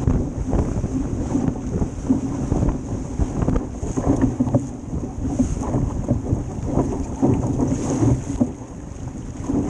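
Wind buffeting the microphone of a stern-mounted GoPro over the rushing and splashing of water along a Club 420 dinghy's hull as it sails through chop, rising and falling in uneven gusts.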